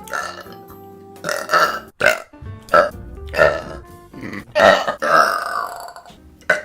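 A woman burping, a quick string of about seven separate burps, some short and one longer and louder about two-thirds of the way through. Faint background music plays underneath.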